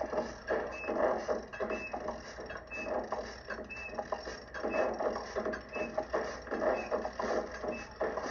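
A rhythmic mechanical clatter, repeating about once a second.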